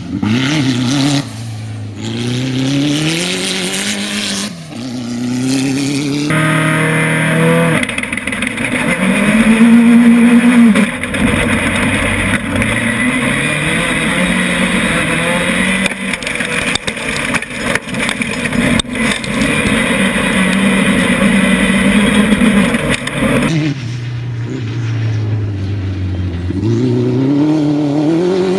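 Pro Buggy off-road race car engines revving hard, pitch climbing and dropping through gear changes as the buggies race past. About six seconds in the sound turns into a dense, steady engine and rushing noise from an onboard view for some seventeen seconds. Near the end a buggy revs up and down again as it slides.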